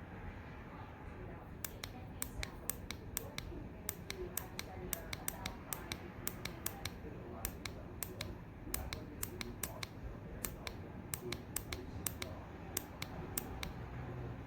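A long, irregular run of sharp clicks or taps, several a second, starting about a second and a half in and stopping near the end, over a low steady background hum.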